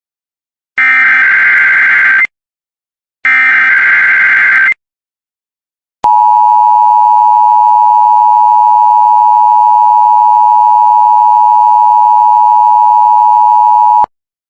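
Emergency Alert System tones: two harsh digital screeches of about a second and a half each, the SAME header bursts that encode the alert for a required weekly test, then after a short pause the EAS two-tone attention signal sounds steadily for about eight seconds and cuts off abruptly.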